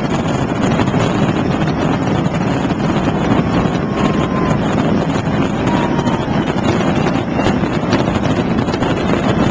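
Fireworks display: a loud, unbroken rumble of bursts and crowd noise, with a couple of short whistles in the middle.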